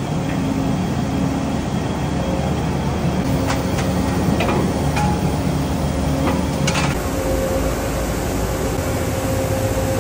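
Steady heavy-machinery din of an aluminium wheel-forging plant, with a run of sharp metallic clanks and knocks in the middle.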